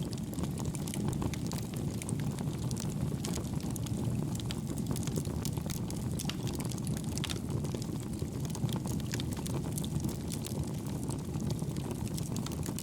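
Homemade wood-gas stove built from two pail cans burning: a steady low rushing of the fire and its draft, with frequent small crackles and pops of burning wood.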